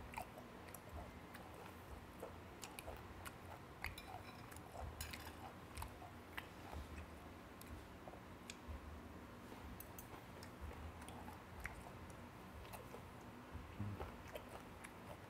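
A person chewing a mouthful of samhap (fermented skate with boiled pork and kimchi) close to a clip-on microphone: soft, wet mouth sounds with scattered small clicks.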